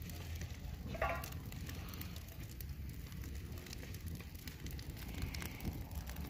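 Wood campfire crackling: many small, sharp snaps scattered irregularly over a steady low rumble.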